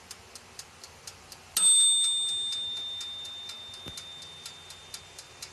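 A mechanical timer ticking about five times a second, with a single bell ding about a second and a half in that rings on and slowly fades while the ticking goes on.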